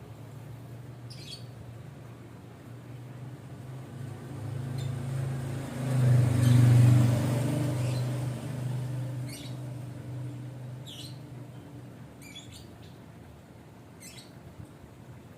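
A sleeping domestic cat snoring: a steady low rumble that swells loudest about halfway through and then fades. A few faint, brief high chirps sound on top of it.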